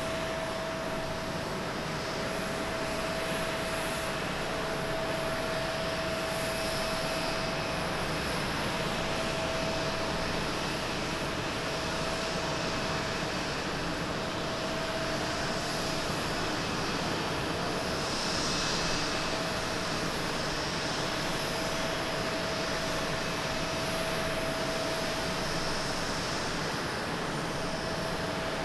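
Jet engines of a Japan Airlines Boeing 777-200ER running steadily as the airliner rolls out along the runway just after touchdown, a constant wash of jet noise with a thin steady whine through it.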